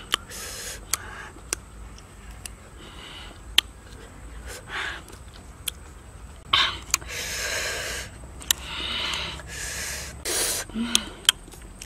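A person eating sour green tamarind with chili salt: sharp lip smacks and chewing clicks between long hissing breaths drawn in and blown out through the mouth, the reaction to the sour, spicy bite.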